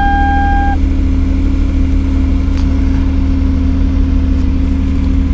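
Car engine idling steadily, with an even low hum. A separate steady high tone stops under a second in.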